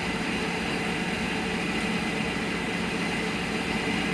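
A steady machine hum with rushing noise, even and unchanging.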